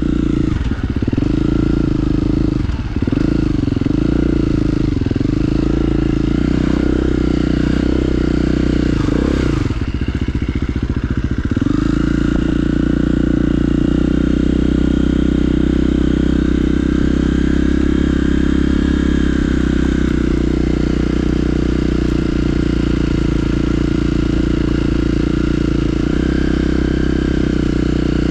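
KTM enduro dirt bike engine being ridden, heard close up. Its revs rise and fall repeatedly through the first dozen seconds, drop off briefly around ten seconds in, then hold steady for the rest.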